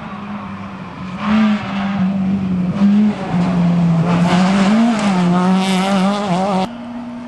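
Peugeot 206 rally car's engine driven hard on a gravel stage, its pitch rising and dipping with gear changes as it approaches and passes close. The sound cuts off abruptly near the end.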